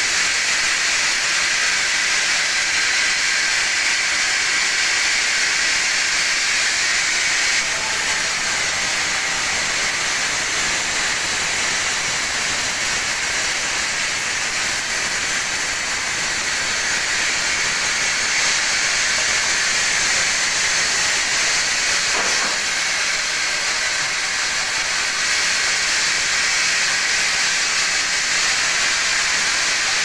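Band sawmill's blade cutting teak: a steady, loud hiss with no break, its high edge brightening about eight seconds in.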